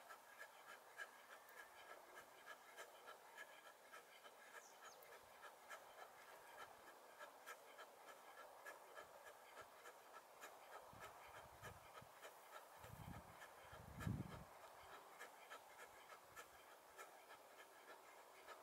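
Near silence, with faint short ticks about twice a second in time with a repeated exercise. Low rumbling buffets of wind on the microphone come about two-thirds of the way in.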